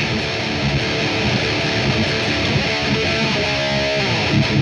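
Heavily distorted electric guitar riffing through a Mesa Triple Rectifier amp, with a held chord ringing out between about three and four seconds in.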